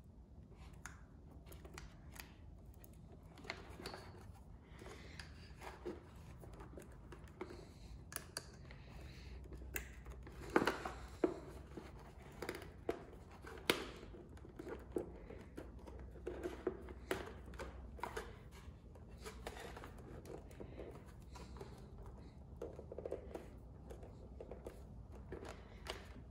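Hands handling a motorcycle fuel tuner module and its wiring harness: scattered light plastic clicks, taps and rustles, the sharpest about ten and fourteen seconds in, over a faint low hum.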